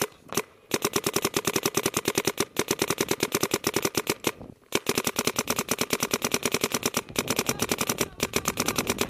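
DLX Luxe 1.5 paintball marker firing long rapid strings of shots, roughly ten a second, with a short break about four and a half seconds in.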